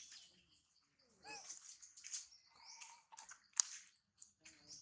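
Rustling and crunching in grass and dry leaves in short bursts, with a brief gliding animal call about a second in and one sharp click a little past the middle.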